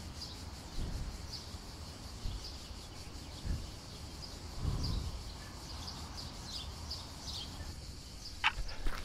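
Summer outdoor ambience: insects chirring steadily with repeated bird-like chirps over it. Near the end, quick footsteps on a paved road start up, about two a second.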